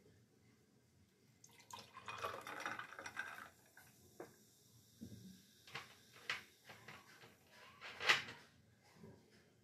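Faint scattered knocks and clicks in a small room, the sharpest just after eight seconds in, with a brief rustling noise about two seconds in.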